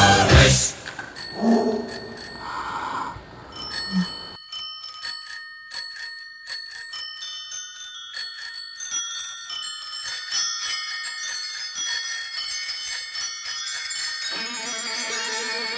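Recorded rock song's bell interlude: many bicycle bells ring and trill in a dense, overlapping chorus, starting about four seconds in after the band music drops away. Near the end a guitar comes in under the bells.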